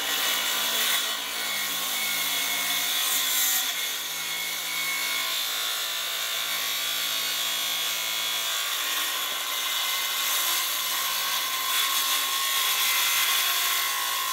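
Makita 6.5-inch cordless circular saw, fitted with a 40-tooth finish plywood blade, running steadily as it is lowered into plywood for a plunge cut and then cutting along the line.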